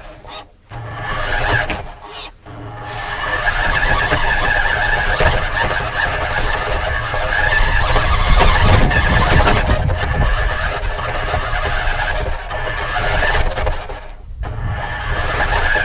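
Radio-controlled car driving with a camera mounted on it: a steady high whine from its motor and gears over a rumble of tyres on the ground. It starts in a few short spurts, runs on continuously, and drops off briefly near the end before picking up again.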